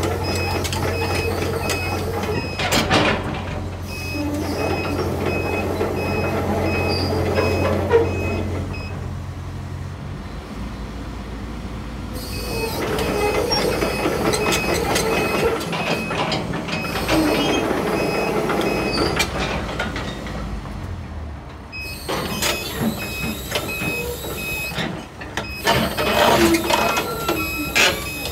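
Sumitomo SH200-5 hydraulic excavator running, its diesel engine and hydraulics working as the boom and arm are operated, with occasional sharp knocks from the working front. A fast, high-pitched beeping alarm sounds through most of it, and the engine note drops about ten seconds in.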